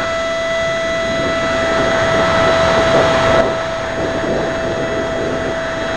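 The 50 mm electric ducted fan of a small model jet running at steady throttle: a steady high whine over rushing air noise.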